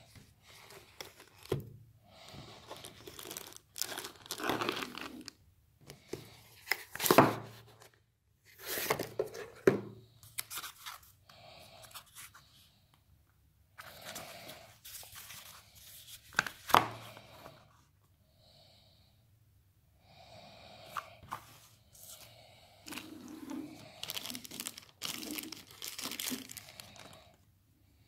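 Cardboard box, plastic wrap and paper packaging handled and pulled open: irregular crinkling, rustling and tearing, with sharp loud crackles about a quarter and again about three fifths of the way through.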